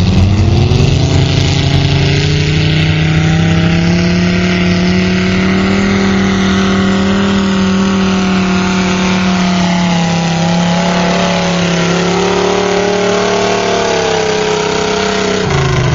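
Three-engine garden pulling tractor running flat out under load as it drags a weight sled. The engines' pitch climbs in the first second, holds a steady high-revving note with small wavers, and drops off near the end as the throttle comes back.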